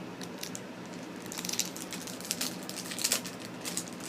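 Rustling and crinkling from packaging and small items being handled, with scattered light clicks and two denser spells of crinkling partway through.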